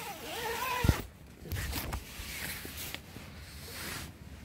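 Tent door zipper being drawn open in several short pulls.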